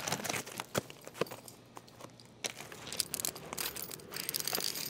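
Scattered clicks, scrapes and scuffs on a concrete sidewalk as a small skateboard slips out from under a man's foot and he falls to the ground.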